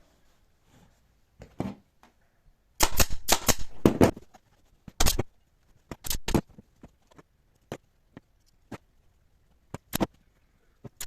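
Irregular sharp clacks and knocks: a quick cluster of them about three to four seconds in, then single ones spaced a second or so apart.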